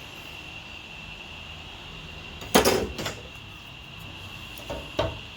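Metal being handled in a workshop: a loud clatter about halfway through, then two lighter knocks near the end, over a steady faint high-pitched whine.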